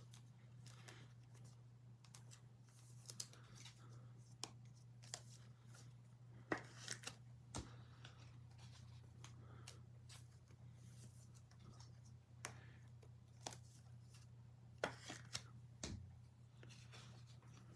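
Faint handling of trading cards and their packaging: scattered soft clicks, slides and swishes at irregular intervals, over a steady low hum.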